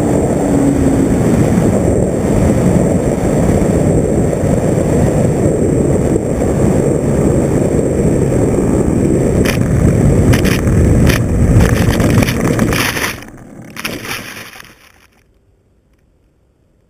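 Onboard sound of an FPV radio-controlled aircraft in flight: steady, loud wind rush and propeller-motor noise. Over the last few seconds of it comes a run of sharp knocks, and then it cuts out to quiet about fifteen seconds in.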